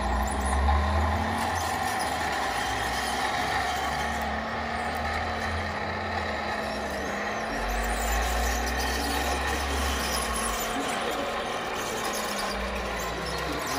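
Radio-controlled scale trucks running, with steady truck-like engine noise and hissing; a low engine rumble swells and fades several times.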